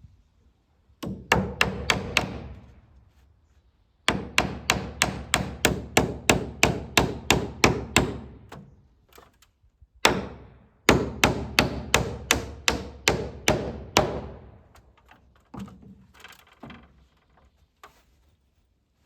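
Hand hammer driving nails into wooden board-and-batten siding: three runs of quick, even blows, about four a second. Each run starts abruptly, and a few scattered knocks follow near the end.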